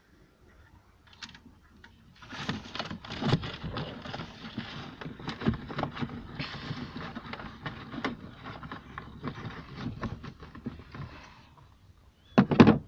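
Rustling, scraping and small clicks of a bundle of camera wires being handled and pushed down through the plastic radio cavity behind a car dashboard. The handling starts about two seconds in and stops shortly before a brief louder sound near the end.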